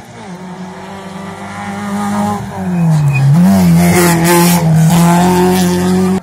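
Small hatchback rally car's engine running hard as it approaches, the revs dropping about two and a half seconds in as it slows for the bend, then picking up again and growing loud as the car passes close by. The sound cuts off abruptly at the end.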